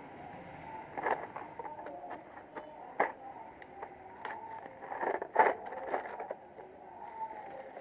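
Packaging and the plastic case of a 41-piece bit and socket set being handled and opened: irregular clicks, rustles and scrapes, with a cluster of louder knocks about five seconds in.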